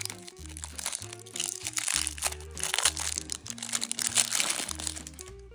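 Packaging crinkling and rustling as it is handled and unwrapped, over background music with a stepping bass line.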